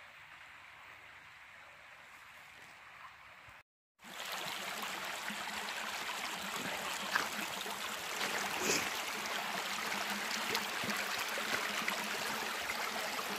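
Mountain stream running, a steady rush of flowing water. It is faint at first, then after a cut about four seconds in it is much louder and closer, with a few light knocks over it.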